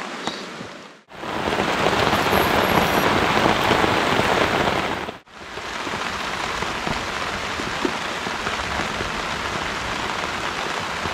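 Heavy rain falling, a dense even hiss, heard in three stretches split by two abrupt cuts about one second and five seconds in. The middle stretch is the loudest downpour.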